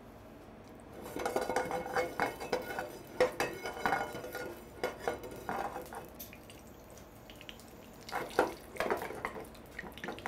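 Metal kitchenware clinking and scraping in irregular knocks: lard is spooned from a stainless-steel bowl into a frying pan, and the pan is shifted about on the gas range's cast grate.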